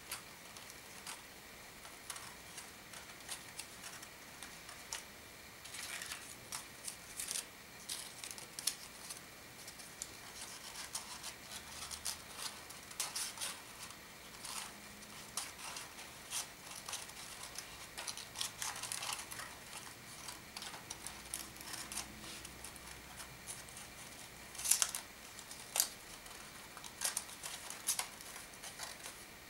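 Paper origami units rustling and crackling as they are handled and their flaps tucked together: a stream of irregular crisp clicks and crinkles, the sharpest a couple of snaps near the end.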